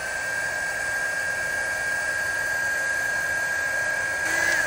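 350 W mini heat gun running on its higher heat setting: a steady fan whir with a constant high whine. It winds up briefly at the start, then cuts off near the end and winds down.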